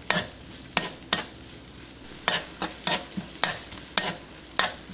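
Metal spoon stirring chopped scallions into melted butter and garlic in a nonstick wok: about ten uneven scrapes and taps of the spoon on the pan over a low, steady sizzle.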